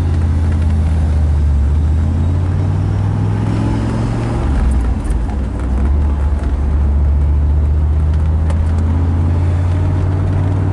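1991 Chevrolet Camaro Z28's 5.0-litre V8 heard from inside the cabin while driving: a steady low engine drone with road noise. About five seconds in the engine note drops a little and the level dips briefly before it settles again.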